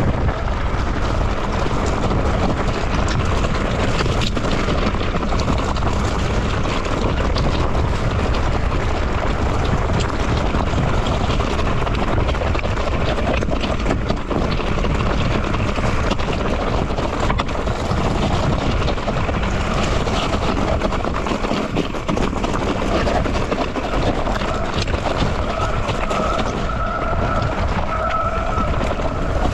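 Mountain bike descending a rough trail at speed: wind rushing over the on-board microphone, tyres crunching over dirt and stones, and the bike rattling with many small knocks. A wavering squeal joins near the end.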